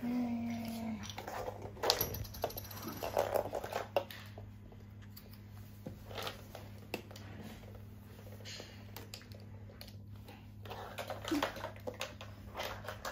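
Hard plastic toy figures being picked up, set down and knocked against a wooden floor, a scatter of light clicks and taps, with a short child's vocal sound at the start and faint murmurs near the end over a steady low hum.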